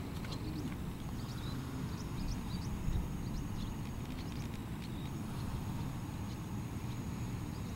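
Wind buffeting the microphone as a steady low rumble, with faint high chirps of small birds scattered over it and a thin, high steady tone that comes and goes.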